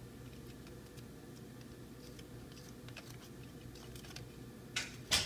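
Spoons scraping and tapping while cookie dough is scooped and dropped onto a paper-lined pan: faint scattered scrapes and ticks, then two sharp knocks close together near the end, the second the loudest.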